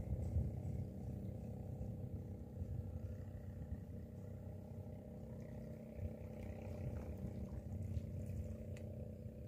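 Wind buffeting the microphone: a steady, uneven low rumble, with a faint steady hum underneath.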